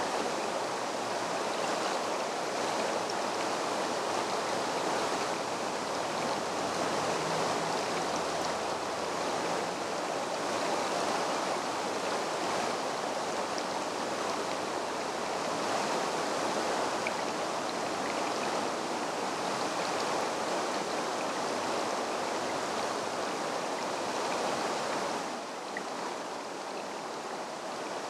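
Shallow creek babbling over stones, a steady rush of running water that drops a little in level near the end.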